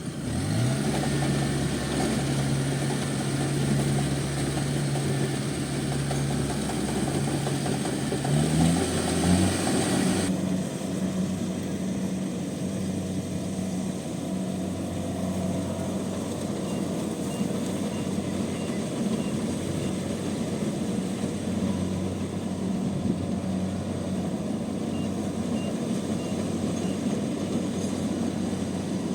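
Rice combine harvester's engine running under load; its revs climb just after the start, hold steady, then climb again about nine seconds in and stay higher.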